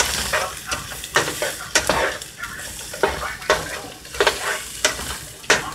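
Sliced bell peppers, onions and mushrooms sizzling in a frying pan while a utensil stirs them, clicking and scraping against the pan at irregular moments.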